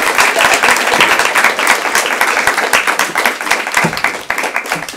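Audience applauding: many hands clapping densely, easing off slightly near the end.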